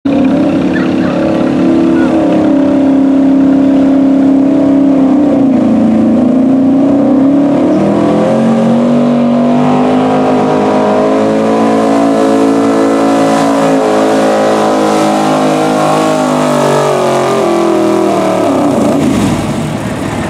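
Gasoline engine of a Chevrolet Silverado pickup at full throttle pulling a weight-transfer sled. The revs sag about six seconds in and climb back, hold high and steady, then fall away near the end as the pull finishes.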